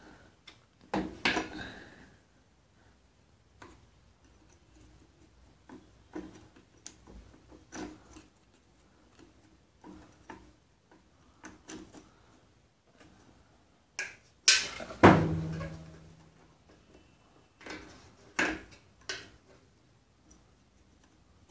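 A small screwdriver clicking and knocking against a Bajaj Pulsar 150's clutch lever while pushing out the stuck plastic end piece of the broken old clutch cable. Scattered light clicks throughout, with louder knocks about a second in and again around fifteen seconds in, the second followed by a short ring.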